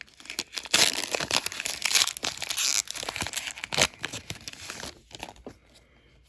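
Wrapper of a retail sports card pack being torn open and crinkled: a dense run of crackling with sharp snaps, one of the loudest about two-thirds of the way through, dying away about five seconds in.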